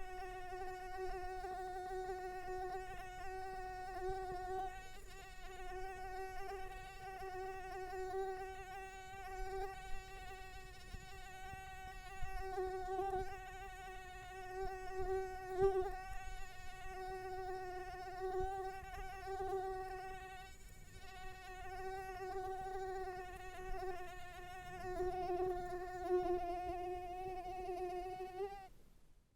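Mosquito buzzing: one steady high-pitched whine that wavers slightly in pitch and loudness, fading out near the end.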